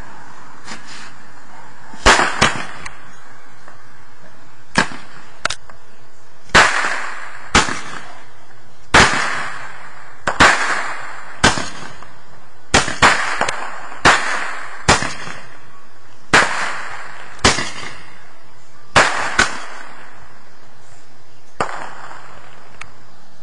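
Aerial consumer fireworks going off overhead: about twenty sharp bangs, roughly one a second and sometimes in quick pairs, each trailing a short echo.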